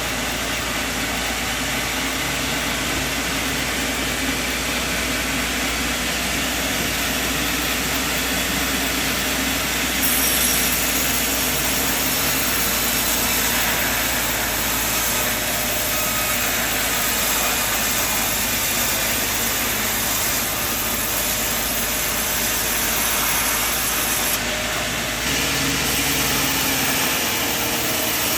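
Sawmill machinery running steadily, a dense mechanical noise whose character shifts about a third of the way in and again near the end.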